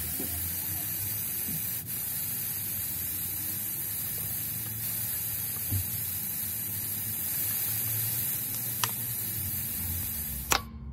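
Air hissing steadily out of a 33-inch tyre through an ARB E-Z brass deflator screwed onto the valve stem, letting the tyre down to a lower pressure. The hiss cuts off suddenly with a click near the end.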